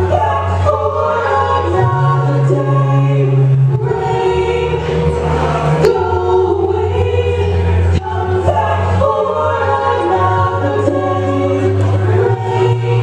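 Live music: a woman singing into a handheld microphone, with several voice parts layered in harmony over sustained low bass notes that change every couple of seconds.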